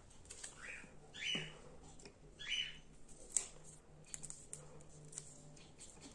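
Black electrical tape pulled off the roll and wrapped around a wire splice at a lamp socket: a few short tearing pulls with light clicks of handling.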